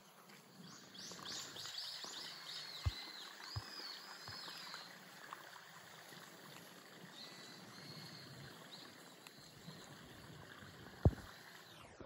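Birds calling with a quick run of high chirps, then a few fainter chirps later, over a steady outdoor hiss. A few soft low knocks are heard, and a sharper, louder knock comes about a second before the end.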